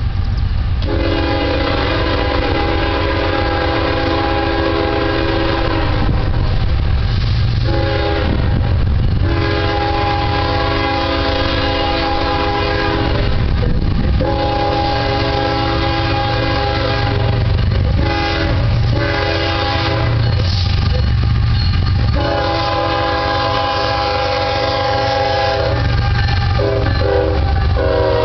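CSX diesel freight locomotive's air horn sounding a chord of several tones at once, in a series of long blasts with a shorter one in between, as a warning for the grade crossing. A low rumble from the approaching and passing train runs under it.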